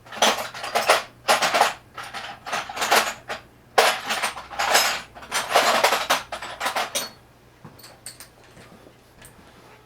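Metal hand tools clattering and clinking as they are rummaged through in search of one tool, stopping about seven seconds in.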